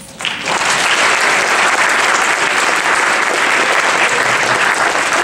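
Audience applauding, starting a moment in and holding steady.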